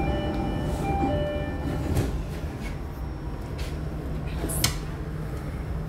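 Jakarta MRT train's door-closing warning: a two-note electronic chime, then a knock as the doors shut about two seconds in, over the train's steady low hum. A sharp click comes near the end.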